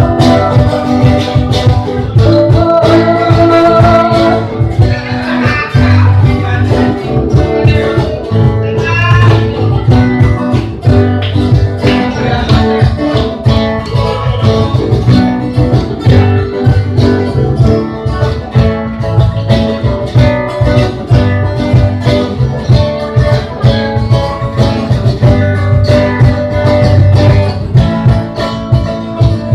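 Band music with guitars over a steady drum beat and bass.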